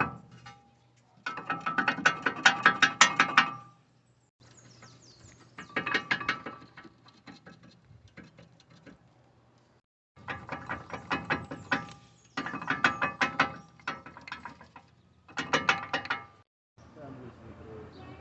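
Rapid metallic clicking and rattling in five bursts, each one to two seconds long, with a ringing metal tone, from brake work on a car.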